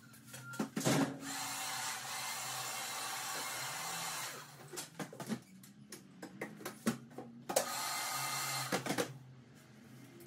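Electric hair clipper running in two spells, a long one of about three seconds and a shorter one of about a second and a half, with scattered clicks in between.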